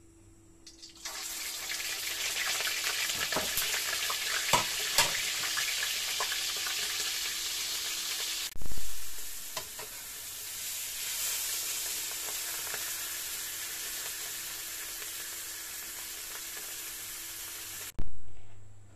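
A whole salted fish slid into hot oil in a wok about a second in and frying with a loud, steady sizzle, with a few sharp clicks of the metal spatula against the wok. After a jolt about halfway through, the sizzling goes on a little quieter, then cuts off abruptly near the end.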